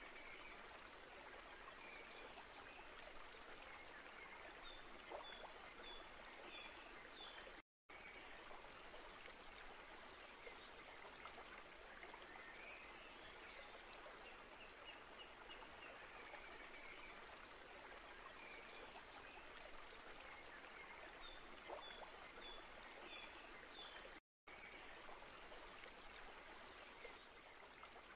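Faint steady rushing noise, like running water, with short series of high chirps a few times. It cuts out to silence twice, briefly.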